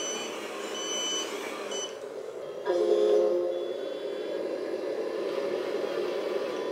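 RC dump truck's sound module playing reversing beeps: two high beeps about half a second long and a third cut short. About two and a half seconds in, a simulated truck engine sound swells in and then runs steadily.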